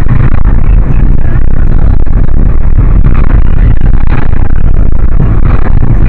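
Road and engine noise inside a moving car's cabin, steady and very loud, distorted by an overloaded dashcam microphone.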